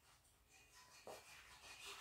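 Faint movement sounds of a person walking and handling a cup: soft rustling, with one light knock about a second in.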